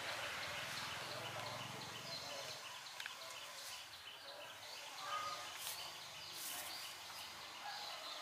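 Outdoor ambience with a rapid, evenly repeated high chirping running steadily in the background.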